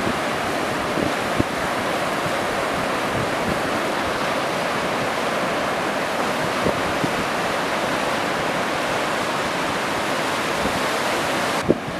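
Steady rush of ocean surf breaking, with some wind on the microphone.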